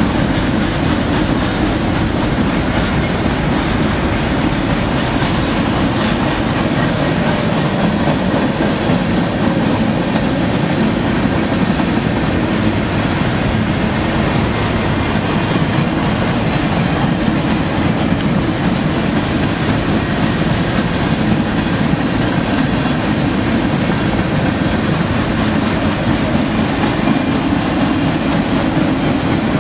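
Freight train's boxcars passing at speed close by: steady, loud noise of steel wheels rolling on the rails.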